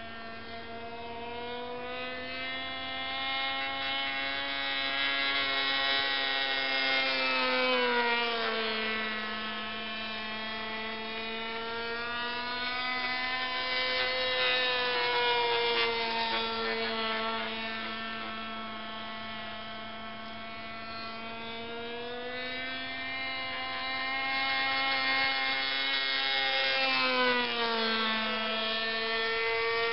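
Radio-controlled model airplane's small internal-combustion engine buzzing in flight overhead. It is a steady high-pitched drone that swells as the plane comes close and drops in pitch as it passes, about eight seconds in and again near the end.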